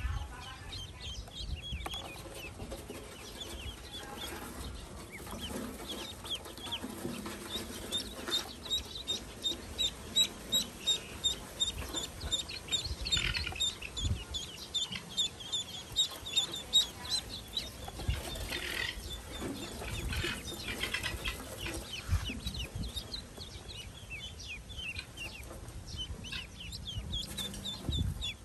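A brood of newly hatched ducklings peeping: many short, high chirps in quick succession, busiest in the middle, over soft handling knocks and rustling.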